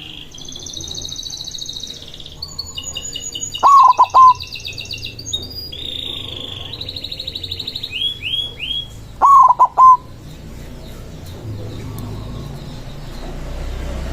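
White zebra dove (perkutut) cooing twice, each a short stuttering phrase, over steady high chirping and trilling from small songbirds.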